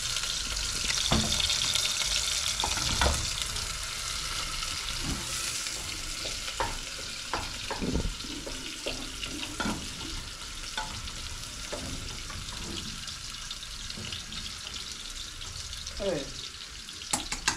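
Sliced onions frying in a pot with a steady sizzling hiss. Scattered knocks and clinks of cooking utensils against the pots are heard throughout.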